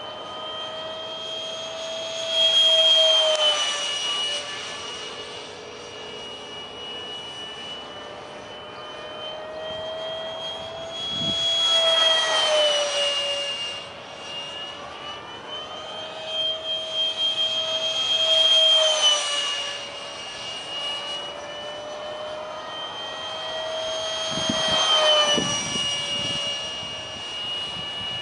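70mm electric ducted fan (Detrum combo) of a foam RC jet whining steadily in flight, its pitch shifting a little up and down. The whine swells into a louder rushing whoosh four times as the jet passes close.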